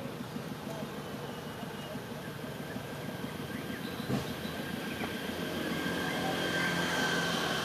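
A distant vehicle's steady hum and high whine, growing louder toward the end, with one short knock about four seconds in.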